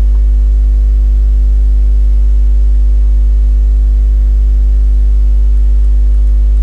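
Loud, steady electrical mains hum with a stack of overtones, unchanging throughout: electrical interference picked up by the recording.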